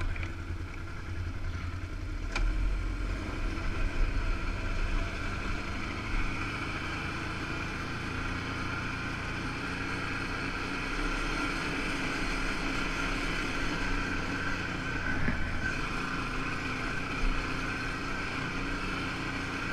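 2013 Can-Am Outlander 1000 XT ATV's V-twin engine pulling away from a stop and running along a dirt trail. It is a little louder for the first few seconds as it gets up to speed, then runs evenly.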